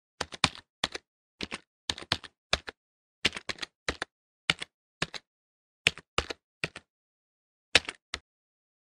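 Computer keyboard keystrokes: about two dozen short clicks in irregular clusters, like someone typing a username, with dead silence between them. A final pair of clicks comes about eight seconds in.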